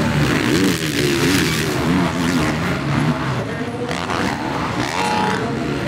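Motocross bike engines revving hard and falling off again and again as the bikes race over the track's jumps, with more than one engine note rising and falling at once.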